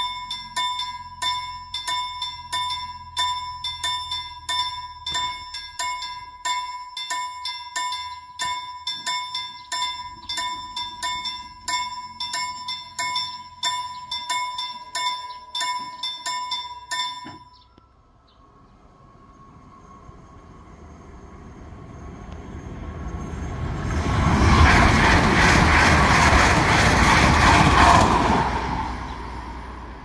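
Level-crossing warning bell ringing in quick, even strokes, a little over two a second, that stop suddenly a bit past halfway once the barriers are down. A Skånetrafiken regional train then approaches, passes loudly over the crossing for a few seconds, and fades away.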